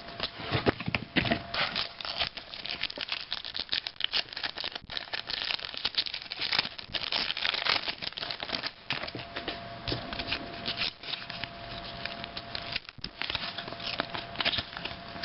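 A trading-card pack wrapper being torn open and crinkled, with cards handled: a dense, continuous run of crackles and rustles.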